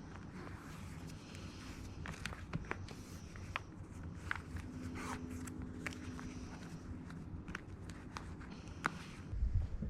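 Footsteps: irregular short steps and clicks over a low rumble, with a faint steady hum for a couple of seconds midway.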